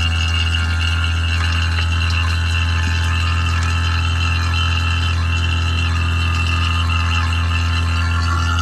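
HVAC vacuum pump running steadily as it evacuates the refrigerant lines: a deep, even motor hum with a higher whine above it.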